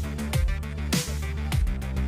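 Background electronic music with a steady beat: a deep kick drum that drops in pitch a little under twice a second, over a sustained bass line, with a cymbal-like hiss on every other beat.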